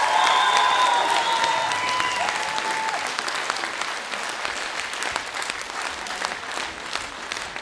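Audience applauding, the clapping slowly fading, with the last held notes of the dance music dying away in the first three seconds.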